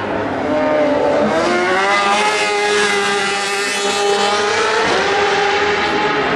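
Vehicle engine on the race circuit accelerating past, its pitch rising after about a second and then holding, with a brief dip near the end.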